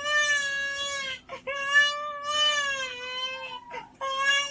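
A man's vocal imitation of a baby crying: long, drawn-out wails, three in a row with short breaks for breath.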